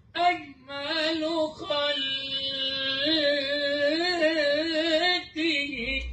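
A man singing an Arabic madih, a song in praise of the Prophet, drawing out long held notes with a wavering pitch.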